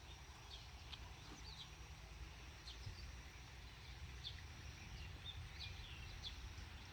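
Faint outdoor ambience: a low steady rumble with about a dozen short, high bird chirps scattered throughout.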